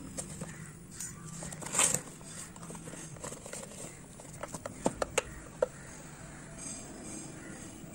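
Cardboard shipping box being opened by hand: flaps pulled back and rustled, with a louder scrape about two seconds in. Around five seconds in come a few sharp clicks and taps as a cylindrical metal watch tin is pulled out and handled.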